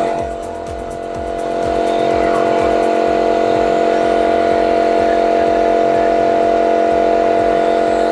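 Electric high-pressure washer running under load with the spray gun held open at its fifth pressure setting: a steady, multi-toned motor and pump hum with uneven low pulsing underneath. The level dips briefly about a second in, then holds steady.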